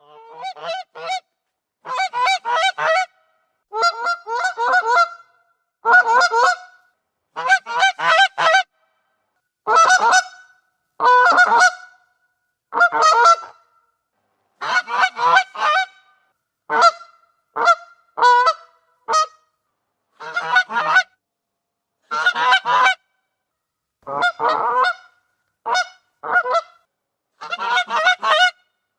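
Goose honking: repeated bouts of short, rapid nasal honks, several in quick succession, with brief silences between bouts.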